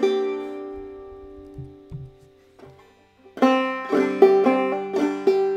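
Five-string banjo in gDGCD modal tuning, played clawhammer style. A chord rings and fades for about a second and a half, a few faint low knocks fall in the short pause, and about three and a half seconds in a quick phrase of plucked notes and brush strokes starts, ending on a ringing chord.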